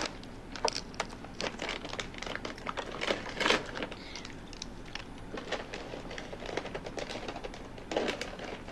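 Irregular light clicks and crinkling rustles, like something being handled, with a louder cluster about three and a half seconds in and another near the end.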